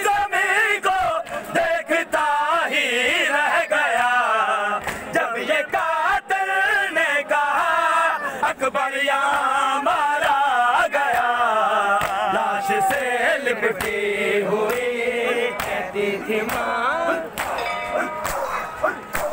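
Men chanting an Urdu noha, a mourning lament, with the sharp slaps of hands beating on chests (matam) through the chant. The voices thin out near the end.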